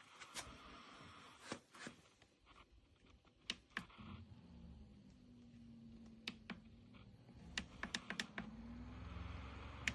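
Scattered light clicks and taps, about a dozen. A faint low hum comes in about four seconds in and slowly grows.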